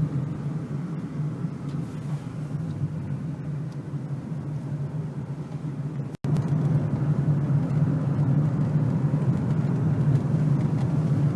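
A car driving along: steady low engine and road rumble. It breaks off for an instant about six seconds in and comes back slightly louder.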